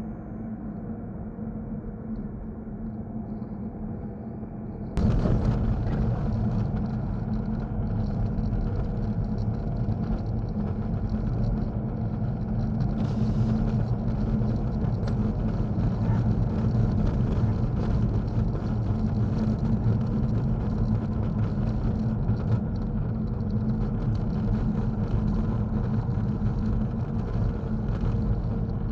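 Car driving on a snowy, icy road on Continental ExtremeContact DWS06 tyres, heard inside the cabin: a steady low drone of engine and tyre noise with a constant hum. About five seconds in it jumps louder as the road turns to an icy climb.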